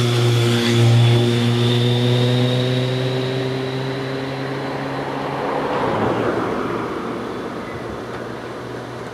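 Steam locomotive approaching slowly along the line. A low steady hum with a faint upward drift in pitch dominates for about six seconds, then stops and gives way to a swell of rushing noise that fades away.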